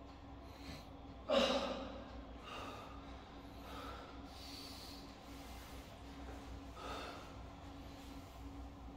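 A man's breathing: one loud, sharp exhale about a second in that fades within half a second, then a few quieter breaths, over a steady low hum.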